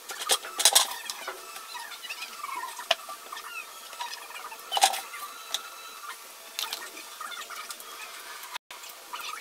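An icepick poking and scraping at the rim of a plastic pail: a few sharp clicks and knocks with short squeaky plastic scrapes between them.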